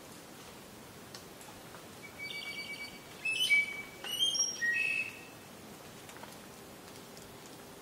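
A songbird singing one phrase starting about two seconds in: a quick run of short repeated notes, then a few loud, clear whistled notes at different pitches. Faint forest background with occasional small ticks underneath.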